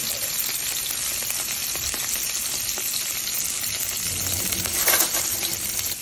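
Salmon fillets searing in butter in a nonstick frying pan, sizzling steadily. A brief louder noise comes near the end.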